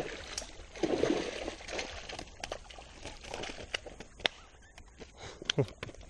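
Water splashing and sloshing as a large hooked fish thrashes at the surface, loudest about a second in, with scattered sharp clicks.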